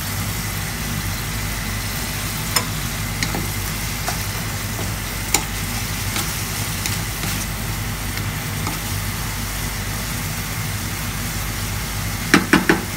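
Chicken and carrots simmering in a pot, with a steady low hum and a few scattered pops. Near the end a wooden spatula knocks three times quickly against the pot as the food is stirred.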